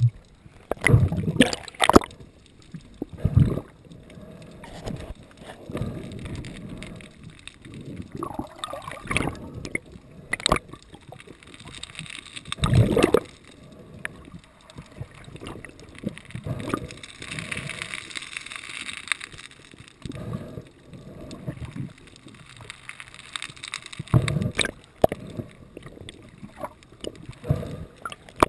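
Water gurgling and sloshing, broken by irregular knocks and splashes; the strongest come about a second in and about halfway through.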